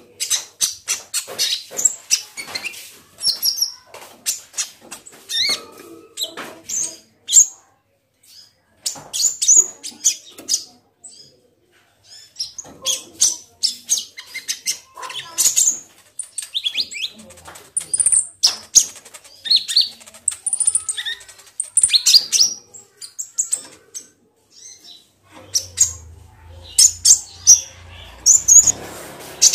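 Sunbird (kolibri ninja) singing: quick runs of high, thin chirps and twitters, with short pauses between the runs.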